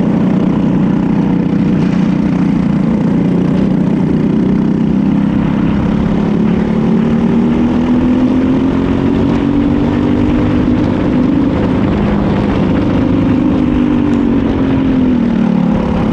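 Onboard sound of a Briggs & Stratton LO206 single-cylinder four-stroke kart engine running at racing speed. Its pitch climbs slowly through the middle as the kart accelerates down the straight, then drops off near the end as it slows for a corner.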